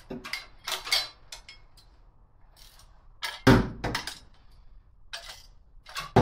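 Wrench clinking on the exhaust manifold bolts of a Ford Y-block V8 as they are worked loose: a few irregular metal clinks, with a heavier clank about three and a half seconds in and a sharp one near the end.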